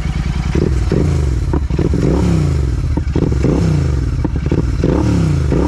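Motorcycle engine revving up and down repeatedly while riding, loud, with a few sharp pops in between.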